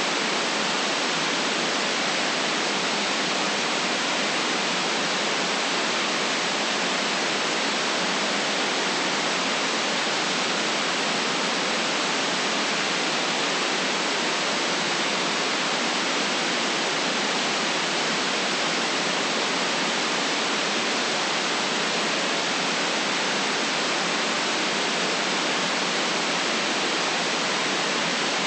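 Steady white noise: an even, unchanging hiss with no deep bass, constant in level throughout.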